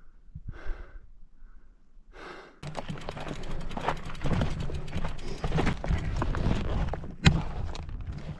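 Heavy, gasping breaths from an exhausted cyclist. After a cut, a fully loaded gravel bike is pushed up a rocky trail: a continuous rattle and scrape over rock and gravel with many small clicks, and a sharp knock near the end.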